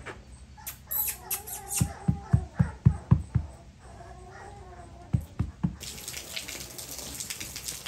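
American Staffordshire Terrier puppy whining in drawn-out, wavering cries, twice, with a run of soft knocks between them. Near the end, scratchy rustling.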